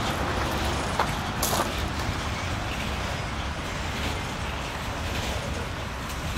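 Freight cars of a slow-moving train rolling by on the rails: a steady low rumble, with two brief sharp noises about a second and a second and a half in.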